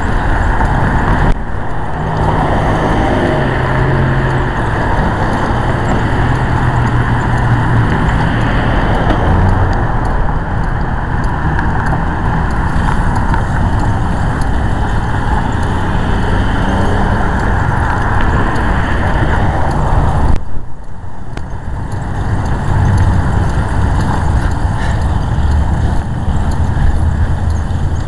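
Loud, steady rumble and road noise of a moving vehicle, dipping briefly about twenty seconds in.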